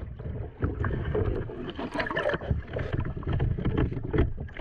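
Muffled churning and sloshing of surf water around a capsized kayak, with irregular knocks and surges.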